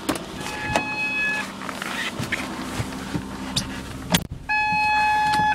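Ford 3.0 Duratec V6 running at its fast cold-start warm-up idle, with a car door thumping shut about four seconds in. An electronic dashboard warning chime sounds briefly about half a second in, then steadily and louder from just after the door shuts.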